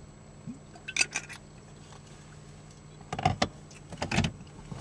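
Car driving, its engine a steady low hum heard from inside the cabin. Clusters of sharp knocks and rattles come about a second in, around three seconds in and just after four seconds.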